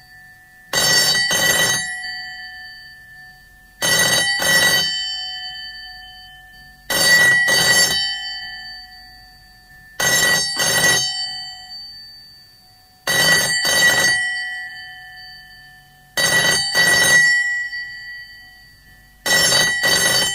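GPO No. 64 external wall-mounted extension telephone bell, its big gongs struck in the British double-ring cadence: seven double rings about three seconds apart, each ringing on and fading away before the next.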